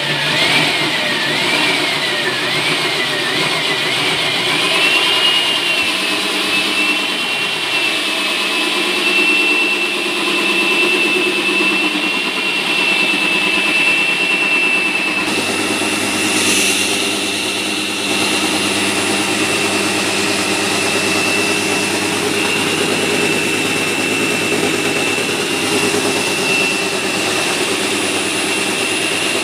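Electric diamond core drill on a rig stand running and cutting a 6-inch core into a reinforced concrete beam. Its motor gives a steady high whine that wavers in pitch for the first few seconds, then holds one tone. A lower hum joins about halfway through.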